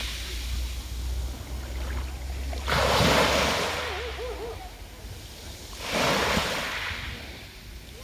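Small waves washing up onto a pebble beach: a steady surf hiss with two surges about three seconds apart, each rising quickly as the wave breaks and fading away over a couple of seconds.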